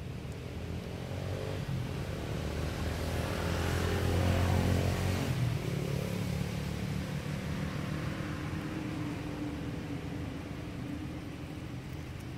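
A motor vehicle passing by: its engine and road noise swell to a peak about four to five seconds in, then fade away.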